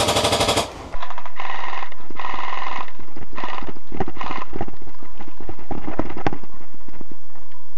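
Airsoft guns firing rapid full-auto bursts, several bursts in a row with scattered single shots in between.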